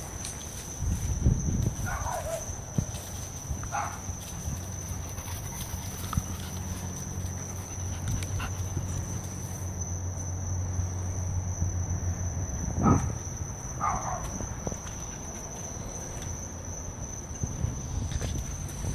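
A wolfdog and a pitbull puppy play-fighting, with short high yelps that fall in pitch, coming in two pairs, and a bump from the scuffle about two-thirds of the way through.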